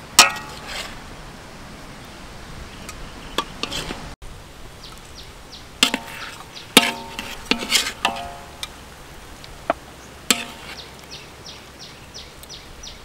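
Metal ladle clinking against a metal wok and tray while sauce is spooned over braised chicken legs. There are several sharp clinks, a few of them ringing briefly, the loudest about seven seconds in.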